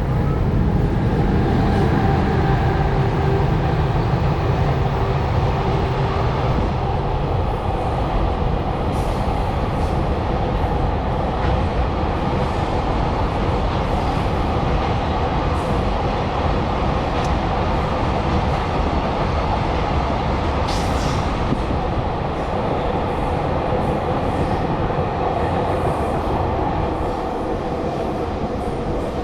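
A train running past on the tracks below: a steady rumble of wheels on rails that holds for the whole stretch and eases a little near the end.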